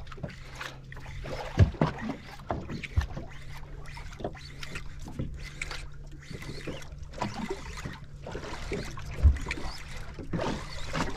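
Boat sounds at sea: a steady low hum under irregular slaps and knocks of water against the hull.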